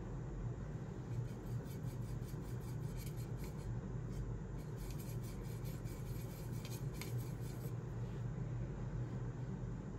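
A paintbrush scrubbing and swirling in watercolor paint pans, a faint rapid scratchy rubbing, over a steady low hum.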